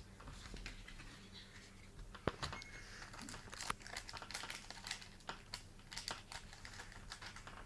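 Plastic trading-card booster-pack wrapper crinkling and cards clicking as they are handled and laid on a table: a run of small irregular crackles and clicks, with one sharper click about two seconds in.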